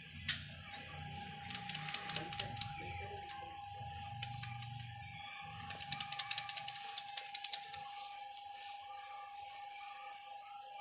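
Bursts of rapid mechanical clicking and rattling, three runs of sharp clicks, from a small metal lock mechanism being handled, over a faint steady tone.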